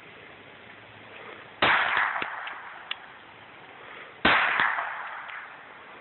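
Two pistol shots from a semi-automatic handgun about two and a half seconds apart, each a sharp crack followed by a tail that dies away over about a second.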